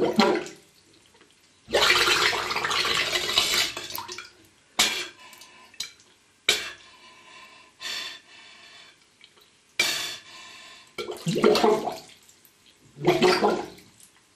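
Bathwater bubbling and gurgling in several separate bursts with short pauses, as a man breathes out underwater in a bathtub, partly through a short length of garden hose.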